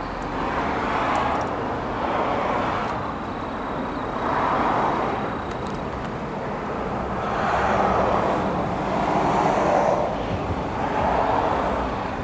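Passing road traffic: cars going by one after another, the tyre and engine noise of each swelling and fading, about five times in a row.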